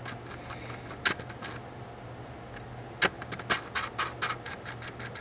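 Light clicks and scratches of fingers handling the red plastic housing of a Gentex Commander 3 horn strobe: a couple of single clicks, then a quicker run of them in the last two seconds, over a low steady hum.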